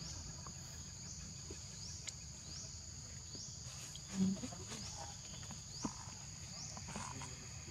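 Steady high-pitched insect chorus in tropical forest, pulsing with a rising sweep repeated a little under once a second. A brief low sound about four seconds in and a few faint clicks.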